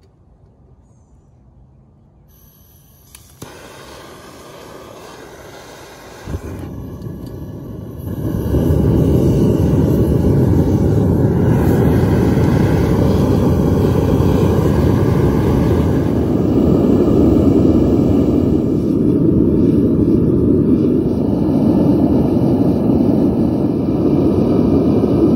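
Gas burner of a backyard metal-melting furnace being lit and run up to heat a crucible of aluminum ingots. There is a click about three seconds in and the burner catches about six seconds in. From about eight seconds it runs with a loud, steady rushing noise.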